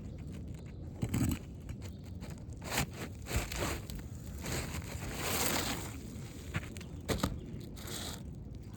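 Scraping and crunching of gritty asphalt roof shingles being worked loose and handled, with a few sharp knocks and a longer scrape about halfway through.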